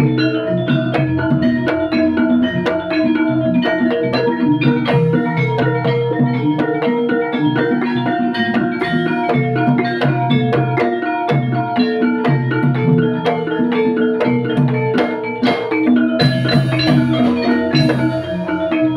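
Javanese gamelan ensemble playing in pelog tuning: bronze kettle gongs and keyed metallophones struck in steady interlocking patterns, led by the kendhang hand drum.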